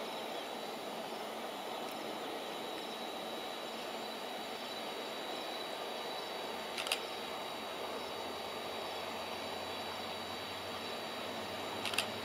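WDG4D diesel-electric freight locomotive approaching from a distance with a loaded train: its low engine drone comes up about halfway through and holds under a steady outdoor hiss with a thin high tone.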